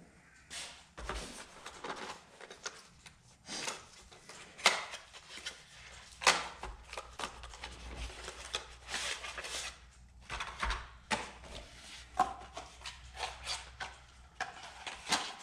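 Hands opening and handling product packaging: irregular rustling and scraping with short, sharp clicks and snaps, the loudest two about a third of the way through.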